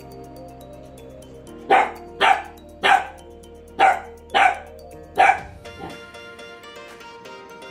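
Pembroke Welsh corgi puppy barking at its own reflection in a mirror: six short, sharp barks about half a second to a second apart, starting about a second and a half in. Background music plays under them.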